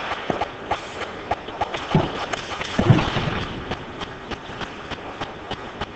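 Ice hockey play on an indoor rink: skate blades scraping and sticks and puck clacking on the ice in a run of sharp clicks, with a louder knock about three seconds in.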